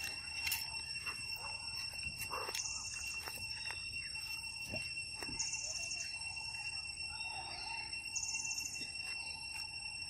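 Steady high-pitched insect chorus, with a short buzz repeating about every three seconds, over outdoor background noise and a few faint clicks.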